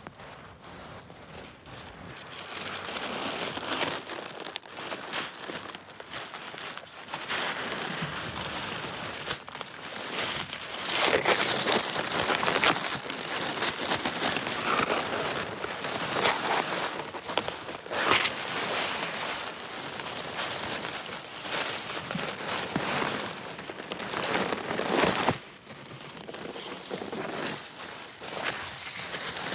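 Crumpled tissue paper crinkling and rustling close to the microphone as kittens burrow and play in it. The rustling comes in irregular bursts and is loudest in the middle stretch.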